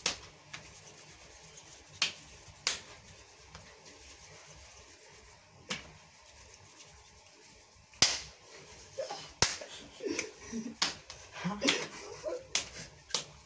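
Sharp hand slaps, skin on skin, about ten of them at irregular intervals, with a cluster of quick slaps and short voice sounds in the last few seconds.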